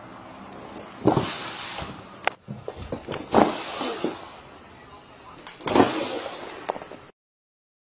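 A person's voice in three short loud bursts, with a sharp click a little after two seconds.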